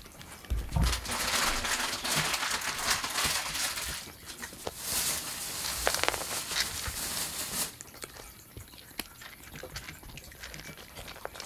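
Cats crunching dry kibble from food bowls, a dense crackle of chewing and kibble rattling against the bowl. It is loudest for the first seven seconds or so, then grows quieter.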